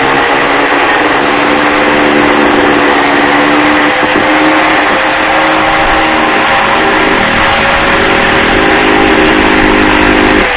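Small power cut-off tool with a thin abrasive wheel running at a steady high pitch while grinding through an old door hinge pin, with a harsh noise of metal being cut. Right at the end it is switched off and its pitch falls as it spins down.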